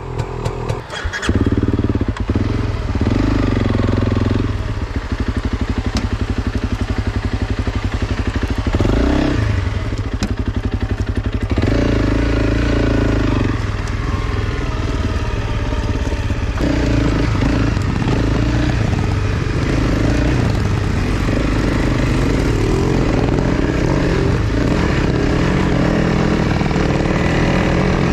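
Honda CRF300 Rally's single-cylinder four-stroke engine running while the bike is ridden off-road, its revs rising and falling repeatedly with the throttle. There is a brief dip in the sound about a second in.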